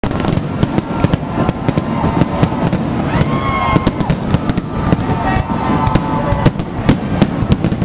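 Fireworks finale barrage: a rapid, continuous stream of bangs and crackles, with a short whistling tone about three seconds in.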